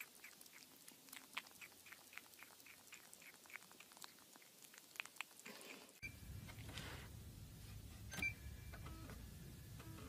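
Kitten eating from a bowl: faint, quick chewing clicks, about four a second. About six seconds in these give way to a low hum, with a sharp click and a short electronic beep a couple of seconds later.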